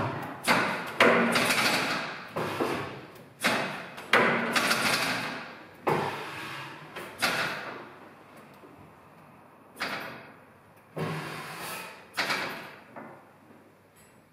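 Old Tangye single-cylinder stationary petroleum engine running, its firing beats coming one at a time at uneven intervals, about ten in all, each fading before the next. The gaps grow longer and the beats weaker near the end.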